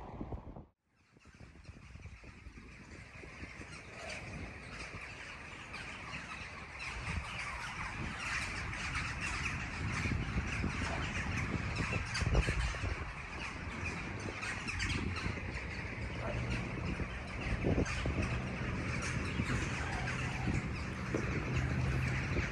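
A large flock of crows cawing and calling overhead, many voices overlapping. After a brief dropout about a second in, the calls build up and grow louder.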